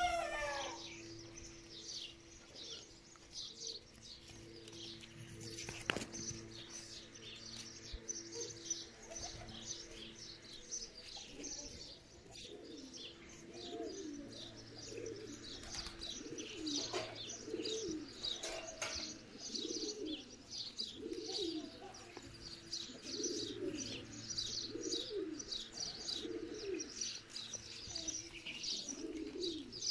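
Domestic pigeons cooing, the low coos repeating about once a second from roughly twelve seconds in, over continual high chirping of other birds.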